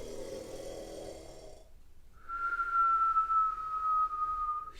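A person making a sleeping sound for a puppet: a low snore-like voice sound, then about two seconds in a single long whistled note held for about two and a half seconds and sliding slightly down, in the manner of a cartoon snore.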